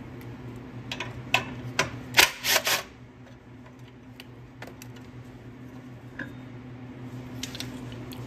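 Makita cordless impact driver hammering in several short bursts during the first three seconds as it backs out the 10 mm bolts holding a Honda GX160 recoil starter, then a few light clicks as the parts are handled. A steady low hum runs underneath.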